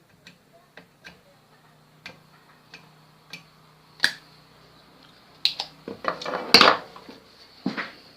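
Scattered sharp clicks and taps of small tools on a TV circuit board, then a burst of louder scraping and clattering about six seconds in, as work on the vertical IC goes on.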